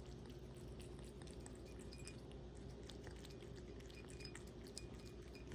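A cat eating: faint chewing with scattered small clicks, over a steady low hum.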